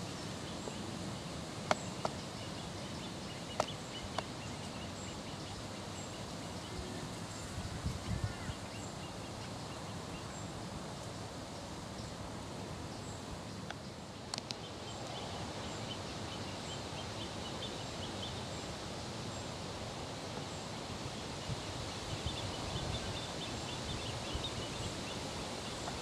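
Steady outdoor background noise with a few sharp clicks in the first seconds. A run of faint, short, high-pitched piping calls, most in the second half, comes from great crested grebe chicks begging near an adult.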